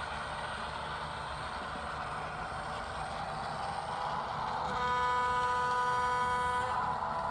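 Recorded EMD 567 diesel prime mover sound from an ESU HO-scale sound decoder, played through a small Bluetooth speaker in a model boxcar, running steadily. About two-thirds of the way through, the decoder's locomotive horn sounds for about two seconds.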